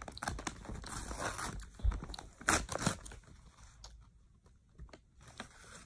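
A paper envelope being torn open and crinkled by hand, with sharp crackles in the first three seconds, then only faint handling rustles.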